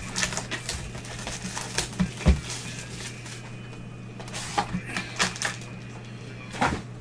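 Trading cards and plastic card holders being handled on a table: scattered light clicks and taps, with one louder knock about two seconds in, over a steady low electrical hum.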